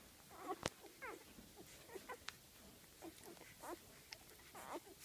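Five-day-old golden retriever puppies squeaking faintly while nursing, with short high squeaks every half second or so. A sharp click comes about half a second in.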